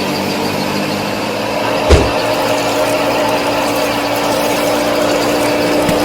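A small motor of the home-built mini tractor or thresher runs steadily with an even hum, and there is a single sharp knock about two seconds in.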